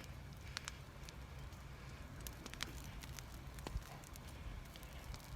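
Open wood fire of brush and tree branches crackling, with scattered sharp pops at irregular intervals over a faint low rumble.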